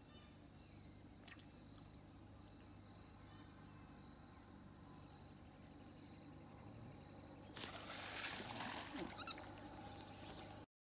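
Steady high-pitched insect drone of crickets or cicadas, faint. About two-thirds of the way in a louder rough, rustling-like burst of noise runs for about three seconds, then everything cuts off suddenly.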